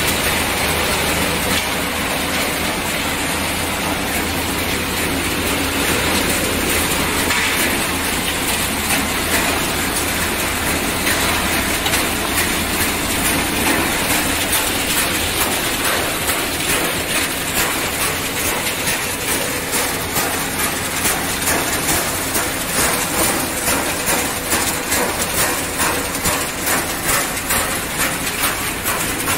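Refrigerator crushing and separating line running, a dense mechanical clatter and rattle. From about halfway a regular pulsing of about two beats a second comes in.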